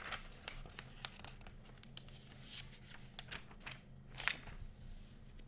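Paper pages of a textbook being leafed through: a run of rustling swishes and small clicks as pages are turned, the loudest swish about four seconds in.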